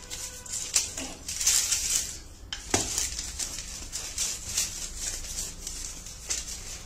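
Wooden rolling pin pushed back and forth over baking paper on a wooden board, pressing a sheet of sesame-jaggery mixture thin: repeated rustling swishes of the paper, with one sharp knock nearly three seconds in.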